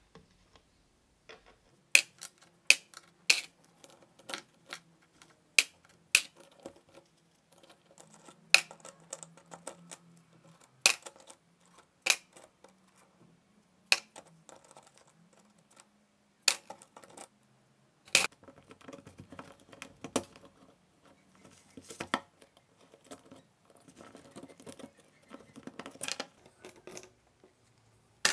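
Irregular sharp metallic clicks and clinks, a dozen or more, with soft scraping and rustling between: small steel planetary gears and parts being worked out of a Crown 18V cordless drill's plastic gearbox housing and set down.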